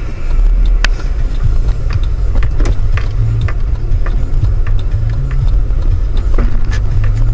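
Car driving, its engine and road rumble heard from inside the cabin, with a few scattered light clicks and knocks.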